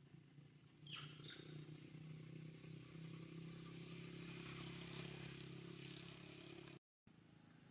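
Faint steady hum of a motor vehicle engine, growing louder about a second in, with a brief high squeak at the same moment. The sound cuts out completely for a moment near the end.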